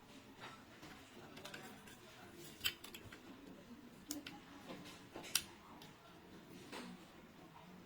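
Faint rustling with a few sharp small clicks, the loudest about two and a half and five seconds in: small parts of a door lock and its wiring being handled.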